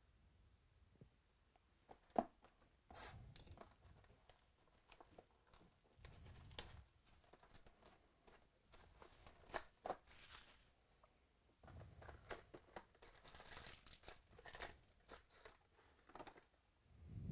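Plastic shrink wrap being torn and crumpled off a sealed cardboard trading-card box, heard as several irregular bursts of crinkling and tearing. There is a single sharp click about two seconds in.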